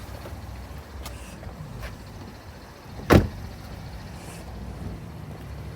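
A car door shut with a single solid thump about three seconds in, over a low steady rumble, with a couple of faint clicks before it.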